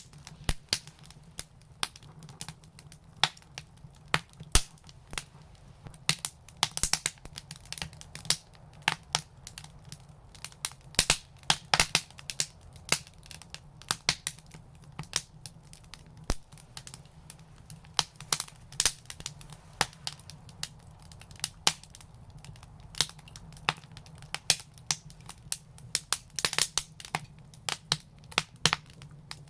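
Wood fire crackling in an outdoor brick fireplace, with irregular sharp pops and snaps, some in quick clusters, over a low steady hum.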